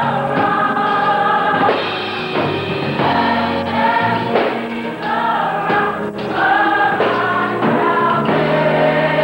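High school gospel choir singing, with held chords that change every second or so.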